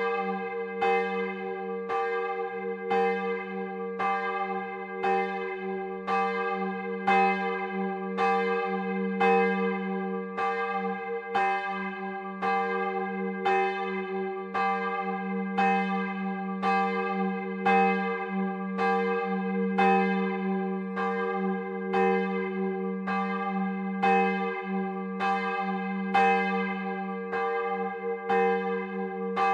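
A large church bell, one of the three cast in 1951 by the Otto foundry of Hemelingen, swinging under an electric ringing drive, its clapper striking about once a second. Each stroke rings on into the next over a deep, steady hum.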